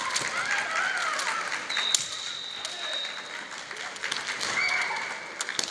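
Kendo fencers' kiai: high, drawn-out shouts near the start and again near the end, with scattered sharp clacks and taps of bamboo shinai and feet on the wooden floor, over hall noise. A thin high steady tone sounds for about a second and a half in the middle.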